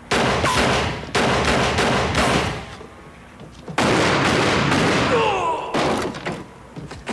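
Gunshots in a shootout: three loud bursts of several quick shots each, at the very start, about a second in and just under four seconds in, each ringing on as it dies away.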